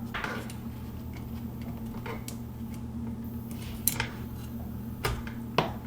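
A few light, separate clicks and taps of the charger's plastic case being handled, over a steady low hum.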